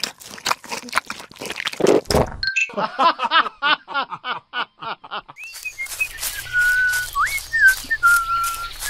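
Dubbed cartoon sound effects. First comes a run of crisp crunching clicks, then a fast series of wobbly squeaky chirps. After about five and a half seconds, bird-like whistles, one long held note and a quick rising swoop, play over a low steady forest ambience.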